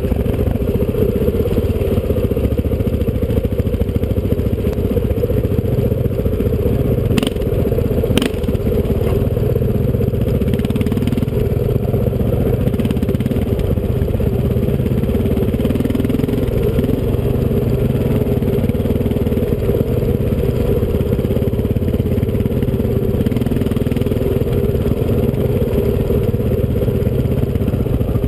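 Dirt bike engine running steadily while being ridden along a trail, picked up close by from the rider's helmet. Two short sharp knocks come about seven and eight seconds in.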